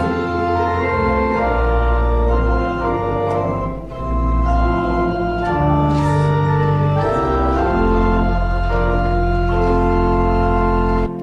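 Organ playing held chords over deep bass pedal notes, changing chord every second or so; it cuts off abruptly near the end.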